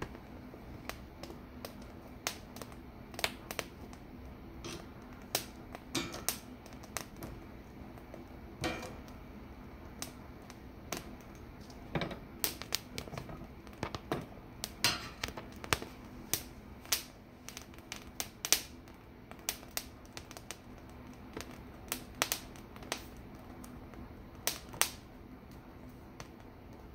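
Poblano pepper skins crackling and popping as they blister and char over a gas burner flame: irregular sharp pops and clicks, a few each second, over a low steady background.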